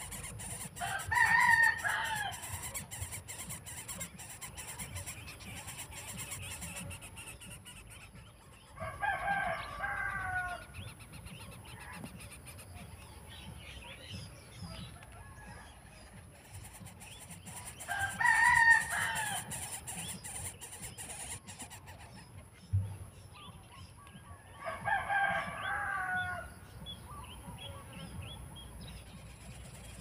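A rooster crowing four times, each crow about a second and a half long, spaced some eight seconds apart. The third crow is the loudest.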